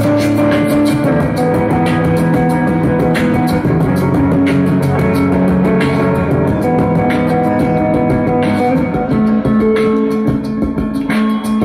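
Live instrumental break: electric guitar strummed in a steady rhythm, with a lead line of long held notes on top.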